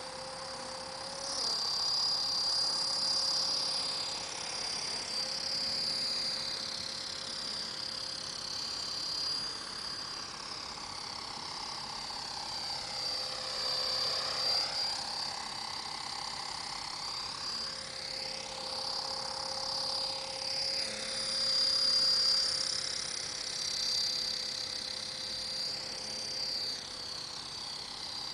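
Honey Bee King 2 electric RC helicopter in flight: a steady high motor and rotor whine whose pitch sweeps down and back up several times, with the deepest dip about halfway through, growing louder and softer as it circles nearer and farther.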